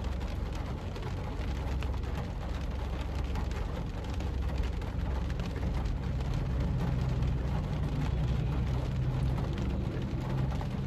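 Rain falling steadily, a continuous patter over a steady low rumble.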